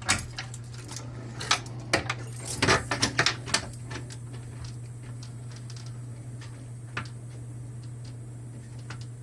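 Clicks and light metallic rattles of a small cabinet door and its homemade regular-arm door closer being worked, busiest in the first few seconds and then thinning to scattered ticks, over a steady low hum.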